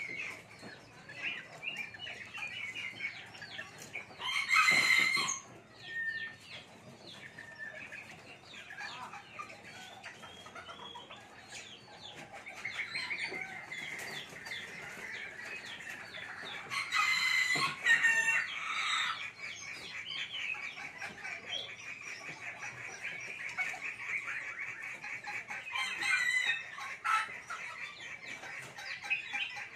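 Serama bantam roosters crowing three times, each crow about a second long, at about 4, 17 and 26 seconds in. Between the crows there is a constant high chirping in the background.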